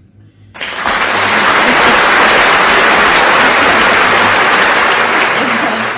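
A loud, dense rush of noise like applause starts suddenly about half a second in and runs on evenly until it fades just before the end.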